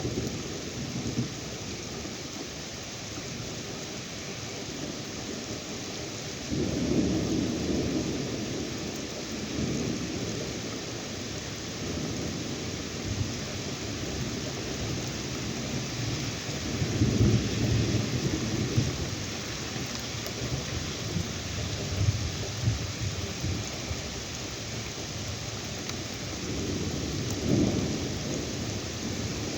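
Heavy rain falling steadily while thunder rumbles, with three louder rolls about a quarter, two thirds and nearly all the way in.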